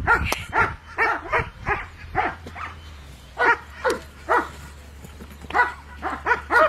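A dog barking repeatedly: runs of short barks, about three a second, broken by brief pauses.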